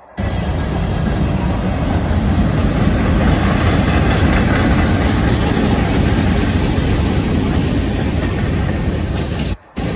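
Freight cars of CSX manifest train M502 rolling past at close range: a steady, loud rumble of wheels on rail, heaviest in the low end. The sound cuts out for a moment near the end.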